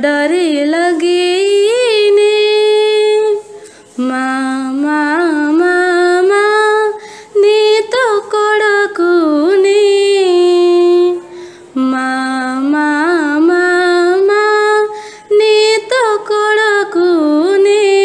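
A solo female voice singing an Odia devotional song with no instruments heard. Long held notes with ornamental turns come in phrases of about three to four seconds, each separated by a short breath gap.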